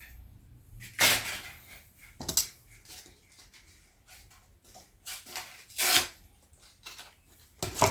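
Handling noises: a few short knocks and rustles of things being picked up and set down, the loudest about a second in and about six seconds in.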